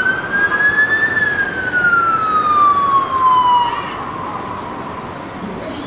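An emergency vehicle's siren sounding one long wail: it climbs to its peak about a second in, then slowly falls in pitch and dies away about four seconds in, over steady street traffic noise.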